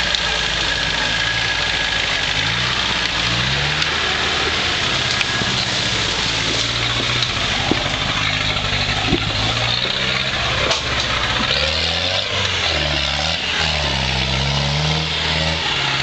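An off-road UMM 4x4's engine running hard and revving up and down as the vehicle crawls and climbs through rough ground, with a few sharp cracks along the way.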